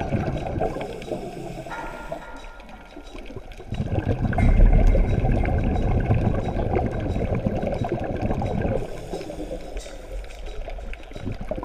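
Scuba divers' exhaled regulator bubbles gurgling underwater, heard through the camera's housing: loud bubbling that eases off about two seconds in, returns strongly at about four seconds for a long exhale, then fades again near the end, following the breathing cycle.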